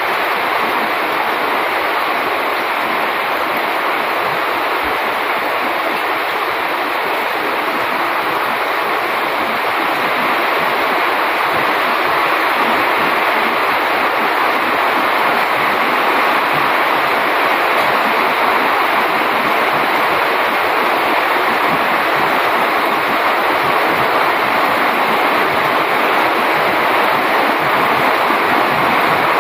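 Heavy rain falling steadily on dense tropical foliage, an even hiss that grows a little louder after about ten seconds.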